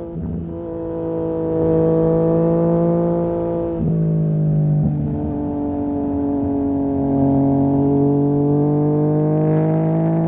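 2020 Yamaha MT-09's 847 cc inline three-cylinder engine running through a Barker full-system exhaust, heard from onboard under steady throttle. Its note drops at a gear change about four seconds in, breaks briefly again a second later, then climbs slowly.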